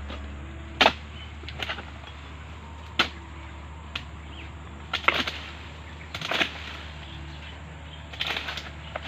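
Pole-mounted steel harvesting blade chopping into the woody frond bases and bunch stalks of an oil palm to cut free ripe fruit bunches: a series of sharp strikes at irregular intervals, a second or two apart, some in quick pairs.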